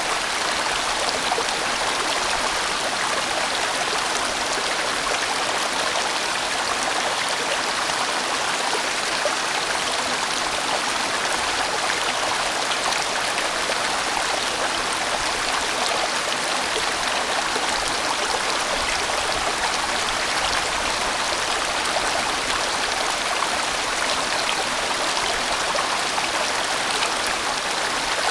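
A large mountain stream rushing and splashing over rocks in a steady, full flow.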